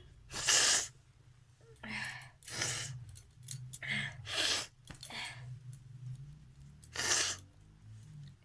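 A person sneezing repeatedly, with shorter breathy nasal bursts between. There are about six short noisy bursts, the loudest about half a second in and again about seven seconds in.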